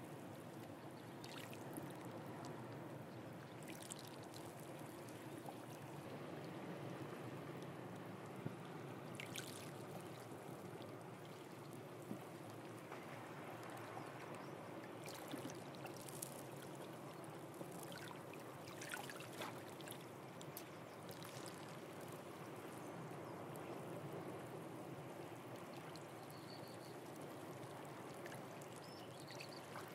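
Calm sea water washing and trickling among shore rocks and tide pools: a quiet, steady wash with scattered small splashes and drips.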